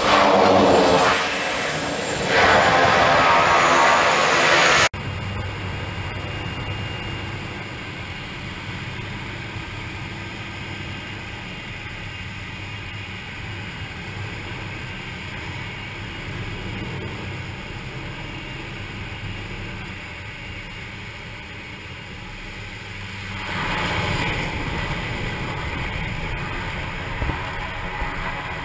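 Pilatus PC-6 Turbo Porter's turboprop engine and propeller, loud, as the aircraft lands and rolls on a grass airstrip. Then, heard inside the cockpit, a steady turboprop drone through the approach, growing louder about 23 seconds in.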